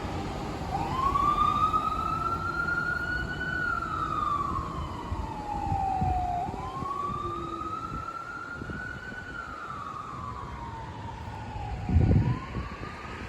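Fire engine siren in a slow wail, rising and falling twice over about six seconds each, with a third rise starting near the end, over a low rumble. A short, loud low thud about twelve seconds in is the loudest moment.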